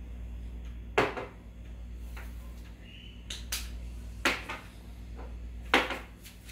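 Several sharp clicks or knocks over a steady low hum, the loudest about a second in and near the end.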